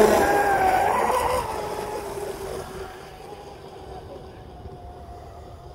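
Pro Boat Veles 29 brushless RC catamaran running flat out across the water: a loud rush of spray and electric-motor whine that fades over the first three seconds as the boat draws away, leaving a faint, steady whine.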